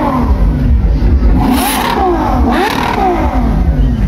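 Ferrari 812's naturally aspirated V12 being revved in quick repeated blips, its pitch rising and falling several times in a row.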